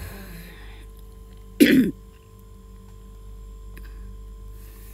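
A woman gives a single short cough about a second and a half in, from someone who is sick. A steady low hum runs underneath.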